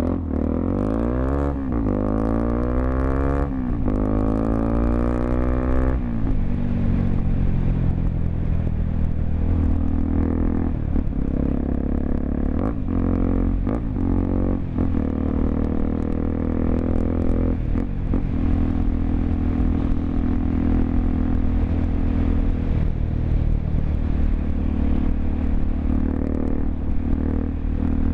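Honda XRE 300's single-cylinder engine through a Roncar 2 Way aftermarket exhaust, accelerating up through the gears: the pitch climbs and drops at each shift, three times in the first six seconds. It then runs at a fairly steady cruise.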